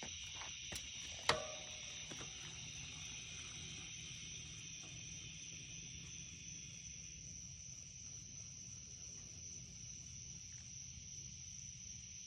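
Steady chorus of crickets or similar insects, a constant high trill. A few faint clicks come in the first second, then one sharp click with a short ring.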